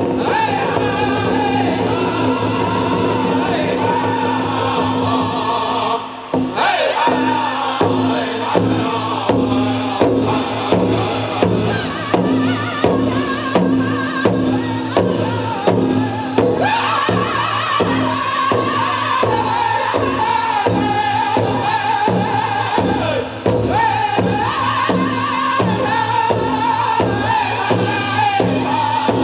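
Powwow drum group singing in unison over a steady, pounding beat on a big drum. This is the change-up song for a men's chicken dance contest. The singing briefly drops out about six seconds in and again later.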